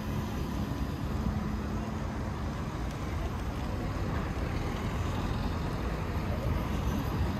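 Street traffic: cars driving past close by, with engine rumble and tyre noise over asphalt. A steady low engine hum runs through the first three seconds.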